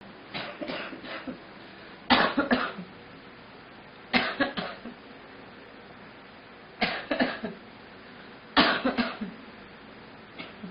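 A girl coughing in six short fits of two to four coughs each, roughly every two seconds; the first and last fits are weaker.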